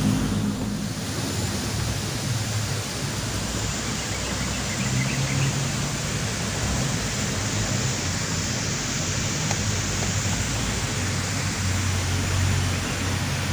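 Steady outdoor background noise: an even hiss with a low hum underneath that swells a couple of times.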